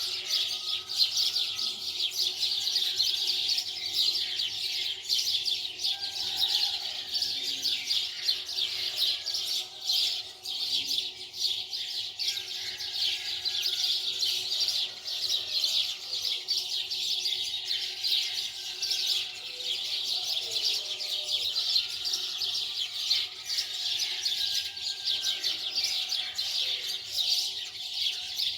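Many small birds chirping in a dense, continuous chatter, over a faint steady hum.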